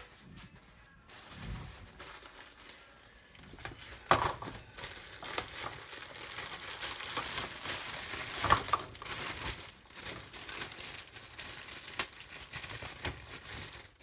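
Plastic packaging of a container of baby spinach crinkling and crackling as it is opened and handled, with a few sharp knocks along the way. It starts about four seconds in, after a quiet start.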